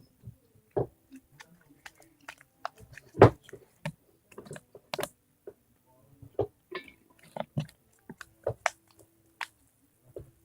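Dough slime being worked by hand, giving irregular sticky clicks and squishy pops. The loudest pop comes a bit over three seconds in.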